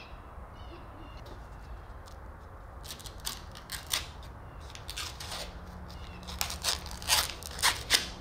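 Plastic film and masking tape being peeled off a fresh epoxy patch on a fibreglass hull: a run of crinkling, rustling bursts starting about three seconds in, growing louder and thicker near the end.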